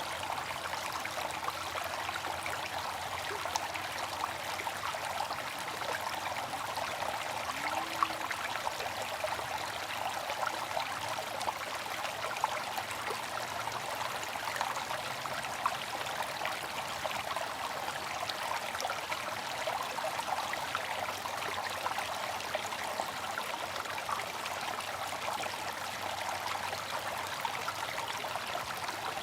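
Bamboo water fountain: water trickling and splashing steadily, with a few sharper drips standing out here and there.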